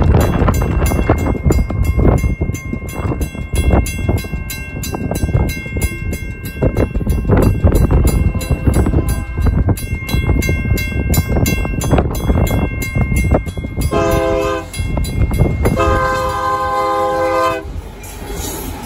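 A WCH mechanical crossing bell rings at a steady, even beat. Near the end a Union Pacific freight locomotive's horn sounds twice, a short blast and then a longer one, and the lead locomotives start passing through the crossing.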